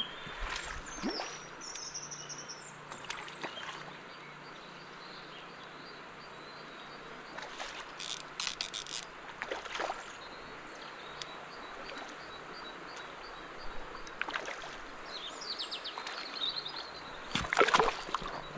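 A hooked brown trout splashing and swirling at the surface as it is played on a fly line. There are several short splashes through the middle and a louder burst of splashing near the end as it comes to the landing net. Birds chirp faintly in the background.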